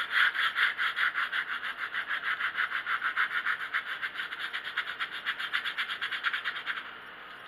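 100-grit sandpaper rubbed back and forth by hand over a filled wooden trim strip, about five quick scratchy strokes a second, knocking down the high spots of the filler. The strokes fade out near the end.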